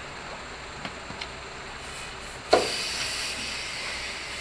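Compressed air starting with a sudden burst about two and a half seconds in, then hissing steadily and slowly fading, while an inner-tube tractor tire is being worked on. Two faint clicks come just before it.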